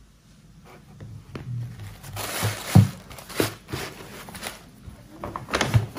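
Packaging crinkling and rustling as purchases are handled, starting about two seconds in, with a few sharp, louder crackles.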